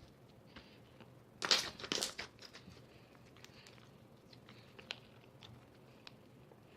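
Slime being squeezed and worked by hand: a cluster of loud crackling pops about a second and a half in, then scattered small clicks and pops.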